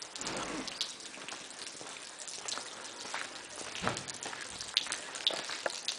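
Water drops falling and tapping at irregular moments over a faint steady hiss, as in light rain or dripping after rain.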